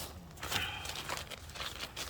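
Irregular rustling and crinkling of a sleeping mat's nylon stuff sack being handled as the mat is unpacked.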